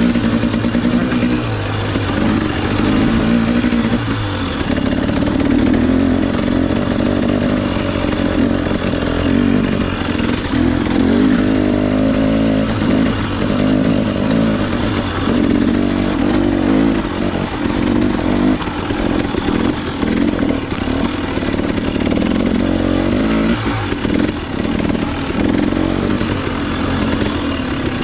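KTM 300 XC-W two-stroke dirt bike engine running under way on a rocky trail, its pitch rising and falling with the throttle, with some clatter over the rough ground.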